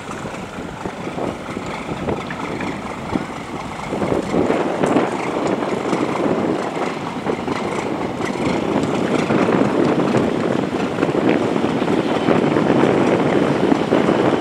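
750-horsepower Komatsu marine diesel engine of a fishing boat running, its exhaust a steady noise that grows louder about four seconds in.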